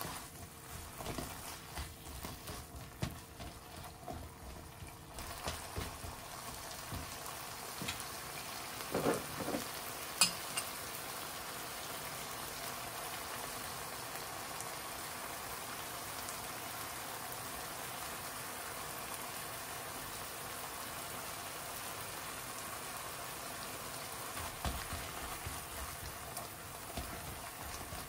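Minced chicken sizzling in oil in a nonstick frying pan, stirred with a plastic spatula. A steady sizzle runs through the middle, with scraping from the stirring near the start and end and a sharp clink about ten seconds in.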